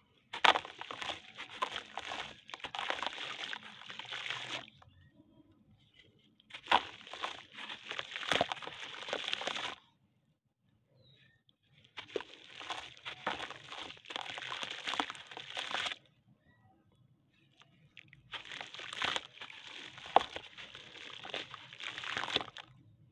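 A water-soaked slab of sun-dried red dirt (red brick soil and sand) crunching and crackling as hands squeeze and crumble it in a tub of water. It comes in four spells of about three to four seconds each, with short quiet pauses between them.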